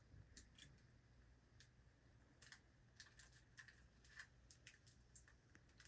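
Near silence with faint, scattered small clicks and taps from hands handling alarm keypad wiring.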